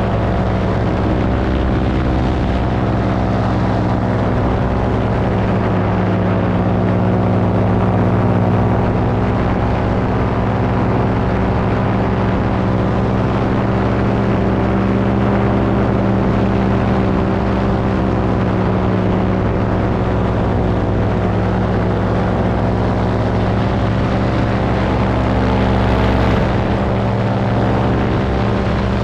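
Paramotor engine and propeller running steadily in flight, an even drone that holds one pitch, swelling slightly twice.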